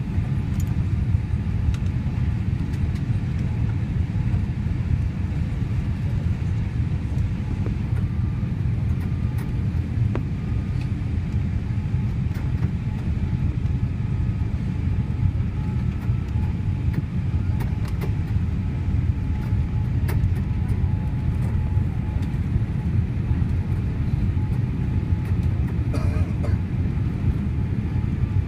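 Steady cabin noise inside a Boeing 787 airliner on final approach: a low rumble of engines and airflow, with faint thin tones and a few scattered small clicks.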